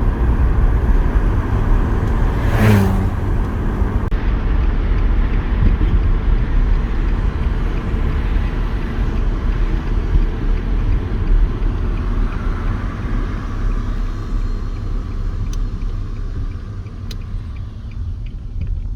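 Nissan Sentra driving, a steady rumble of engine and road noise that eases off in the last few seconds as the car slows.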